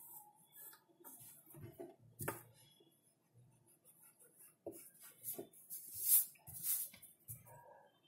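Pencil scratching across drawing paper in a series of short strokes, the strongest about six seconds in. A few soft knocks are mixed in, one about two seconds in.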